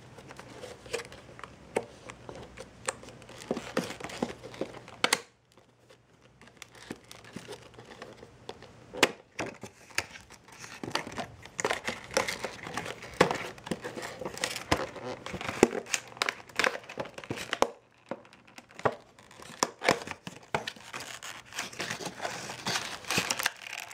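A thin clear plastic packaging box and its card insert crinkling and crackling as they are handled and pried open by hand, with many irregular sharp clicks and rustles. Two short pauses, about five and eighteen seconds in.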